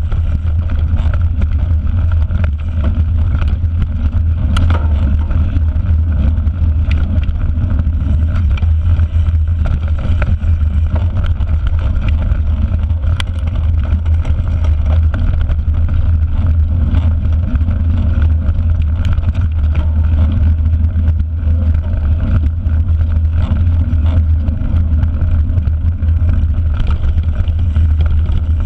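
Steady deep rumble of wind buffeting and vibration on a handlebar-mounted GoPro as a mountain bike rolls over a dirt forest track, with tyre noise and occasional sharp clicks and knocks from bumps.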